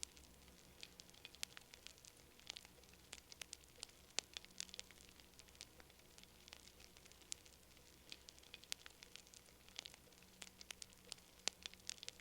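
Wood fire crackling: irregular sharp pops and snaps, several a second, over a faint low hiss.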